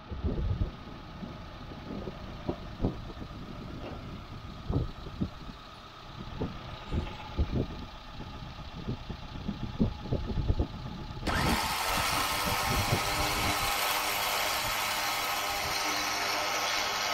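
A vehicle engine idles under scattered knocks and clicks. About eleven seconds in, a louder steady mechanical running sound starts, fitting an electric winch with synthetic rope, mounted on a Suzuki Samurai's bumper, hauling in under load.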